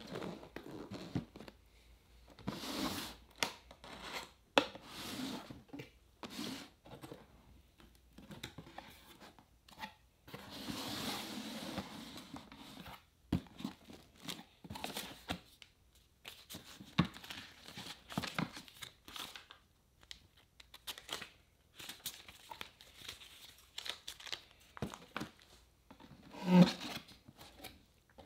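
Cardboard camera packaging being handled and opened by hand, in short, separate rustles, scrapes and crinkles of card and paper. There is a longer scraping stretch about eleven seconds in as the inner box slides out of its sleeve, and one louder knock near the end.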